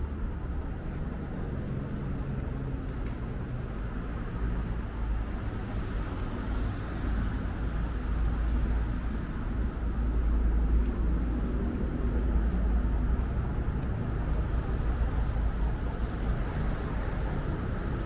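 City road traffic: cars driving past on a multi-lane road, a steady low rumble with tyre noise that grows louder about halfway through.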